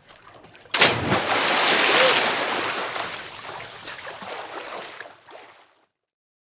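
A swimmer diving into water: a sharp splash of entry about a second in, followed by water churning and bubbling that fades out over the next few seconds.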